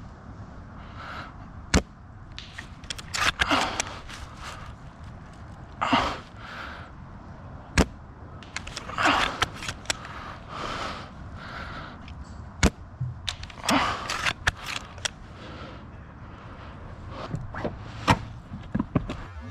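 Airsoft guns firing: about five sharp single cracks spaced several seconds apart, with softer stretches of noise in between.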